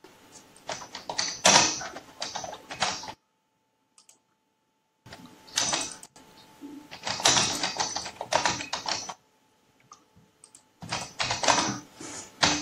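Typing on a computer keyboard: three runs of rapid key clicks, each a few seconds long, with short pauses between.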